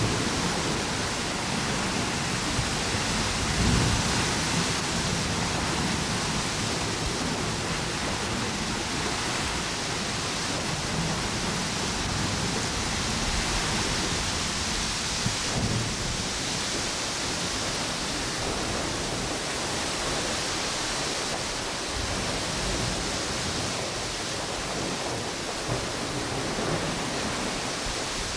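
Ocean waves washing onto a beach and strong wind blowing through palm trees: a steady rushing noise with low gusty rumbles that swell and fade.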